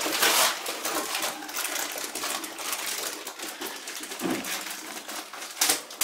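Plastic food boxes and cardboard packets being handled and pulled out of a freezer compartment: a dense, continuous run of small clicks, clatters and rustles.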